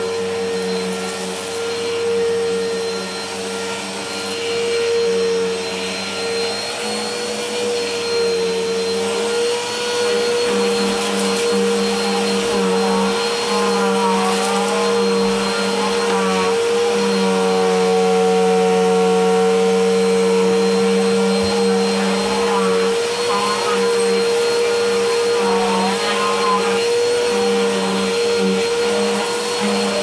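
Bissell Helix upright vacuum cleaner running steadily as it is pushed over carpet, its motor giving a constant, even hum.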